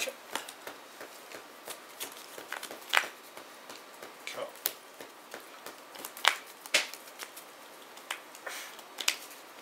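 Trading cards being handled on playmats: irregular soft clicks, taps and rustles as cards are picked up, slid and set down.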